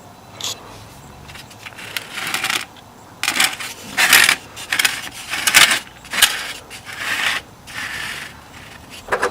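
A small hard object clattering and scraping on a hard surface in a string of short bursts with a few sharp clicks: the scorched Casio watch with its metal back being pushed and turned over while too hot to pick up.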